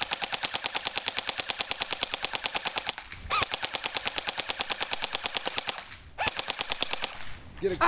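Battery-powered airsoft AK-74 electric gun firing on full auto, in three bursts of rapid, evenly spaced shots with short pauses between. The third burst is brief.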